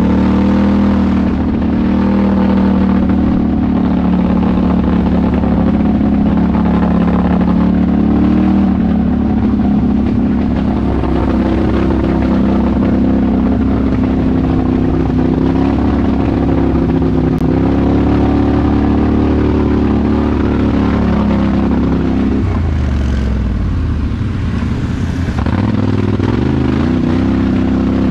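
Polaris Sportsman HighLifter ATV's twin-cylinder engine running at a steady cruising pitch while riding a dirt trail, heard from the rider's seat. Near the end the engine drops off, and its pitch dips and climbs again as the throttle is eased and reopened.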